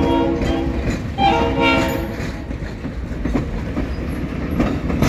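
Diesel locomotive horn of the Santa Fe FP45 sounding two chord blasts, one ending about a second in and a second ending a little after two seconds, over the steady rumble and clickety-clack of passenger cars and a caboose rolling past close by.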